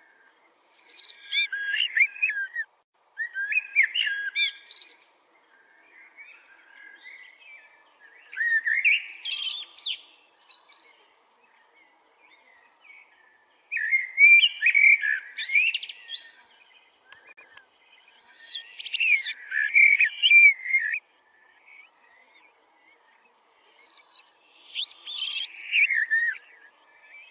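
A bird singing in six loud phrases of about two seconds each, spaced a few seconds apart, with fainter chirps between them.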